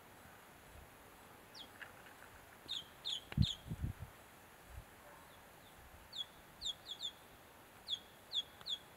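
Bald eagle calling: short, high, thin piping notes that fall in pitch, in three runs of three or four notes about a third of a second apart. A few low thuds come a little after three seconds in, the loudest sound.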